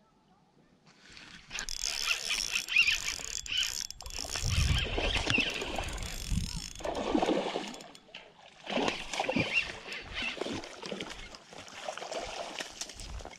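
A hooked largemouth bass thrashing and splashing at the water's surface as it is fought in on a spinning rod, in irregular bursts starting about a second in.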